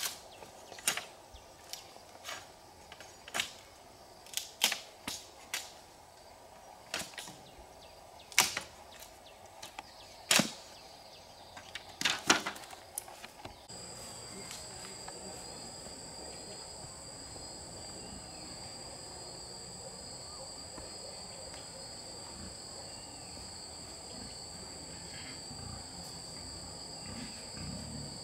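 A run of sharp, irregular knocks, about fifteen of them. About halfway through, a steady high-pitched insect trill starts abruptly and continues.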